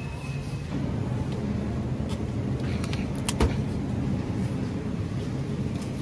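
Steady low rumble of a supermarket aisle while a wire shopping cart is loaded, with one sharp knock about three and a half seconds in.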